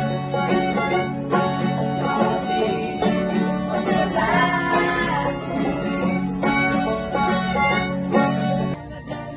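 Music led by plucked string instruments, with sustained bass notes and a wavering melody line; it breaks off about a second before the end.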